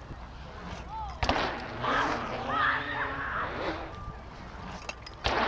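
A sharp knock, then a couple of seconds of distant voices, then another sharp knock about four seconds after the first.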